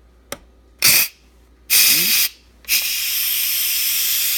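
Instant Pot pressure-release valve turned from sealing to venting: a click, two short spurts of steam, then a steady hiss of steam escaping as the cooker lets off its pressure after cooking.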